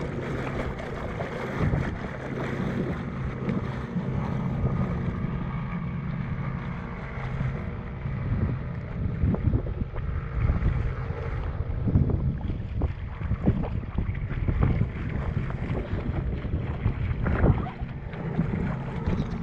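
Wind buffeting the microphone over a small boat running on the water, with a faint steady engine hum in the first half and scattered light knocks.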